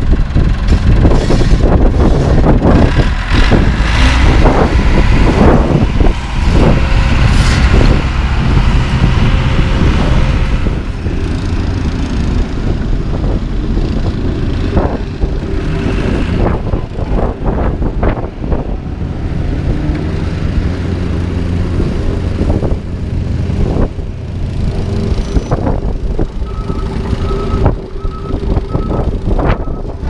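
Diesel engines of asphalt-paving machinery and a dump truck running with a steady drone, with loud knocks and scrapes through the first ten seconds. Near the end, a backup alarm beeps about twice a second.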